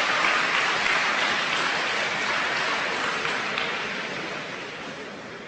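Audience applauding, loudest at first and gradually dying away.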